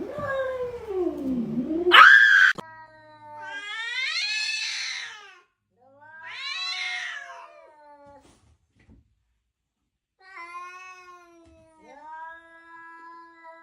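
A domestic cat yowling in five long, drawn-out meows. The first dips low, then rises sharply to a loud, shrill peak about two seconds in; the later calls are shorter and quieter.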